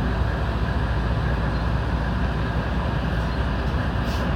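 Electric train running, heard from inside the front car: a steady rumbling noise of wheels on rails and traction motors, with a brief faint hiss about four seconds in.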